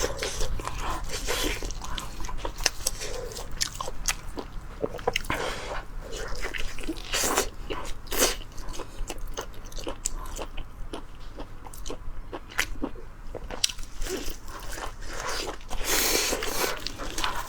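Close-up eating sounds of someone biting and chewing braised pork knuckle: irregular sharp clicks and mouth noises throughout.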